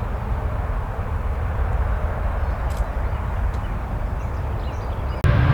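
Steady, even rumble of jet airliner engines. Just before the end it cuts abruptly to a louder jet engine noise with a steady whine in it.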